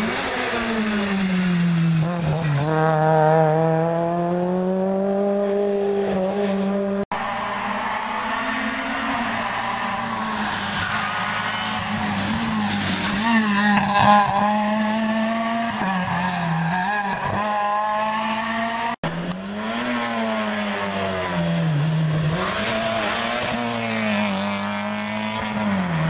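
Rally cars' engines revving hard, pitch sliding down and back up with gear changes and lifts for corners as they pass on a forest stage. The sound cuts off sharply twice as one pass gives way to the next.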